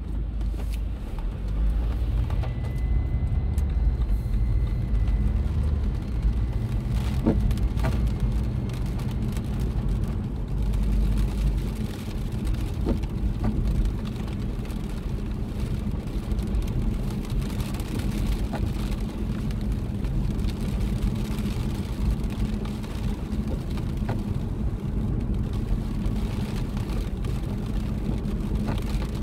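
Steady low rumble of a car driving on a wet road, heard from inside the cabin, with a few faint ticks.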